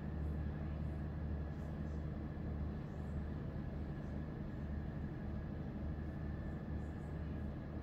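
Steady low hum with a faint, thin high-pitched whine running over it; no distinct events.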